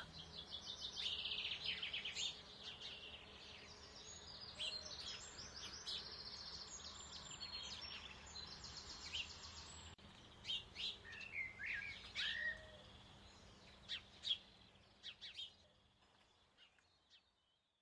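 Recorded outdoor ambience of birds singing: fast trills for roughly the first half, then scattered single chirps, fading out near the end.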